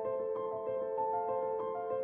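Background music: a gentle keyboard melody of held notes that change pitch about three times a second.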